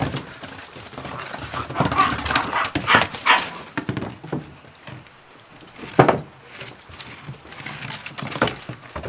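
Gordon Setter puppies at play: small puppy vocal sounds mixed with paws and claws scrabbling on wooden deck boards, busiest in the first half, with a sharp knock about six seconds in and a smaller one near the end.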